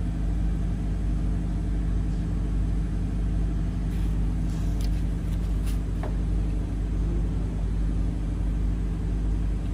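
Boat's engine running with a steady low drone.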